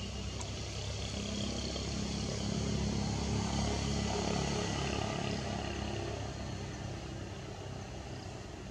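A motor vehicle's engine passing by: a low, steady hum that grows louder over the first three seconds or so and then fades again.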